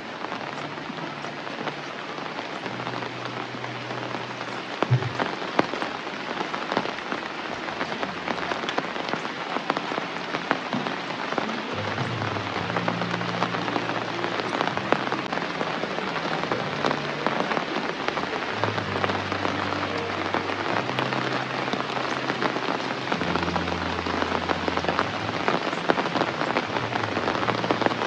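Heavy rain falling steadily: a dense, even hiss of rain with many separate drop hits standing out in it.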